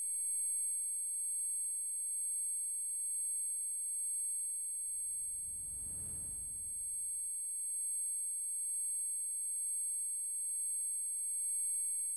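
Electronic soundtrack drone of several steady, high pure tones held together. About five seconds in, a low rumble swells up and fades away again over roughly two seconds.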